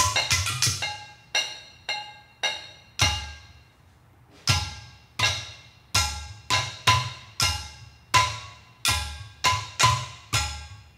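Hand-thrown ceramic percussion played in a rhythmic pattern: small clay bowls struck with mallets give short ringing pitched tones, and clay pot drums add low thumps. The strokes are sparse for the first few seconds, then settle into a steady, even rhythm from about four and a half seconds in.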